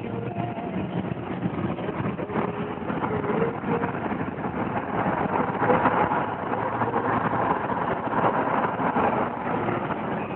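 Car on the move, heard from inside the cabin: steady engine, tyre and wind noise, louder for a few seconds in the middle.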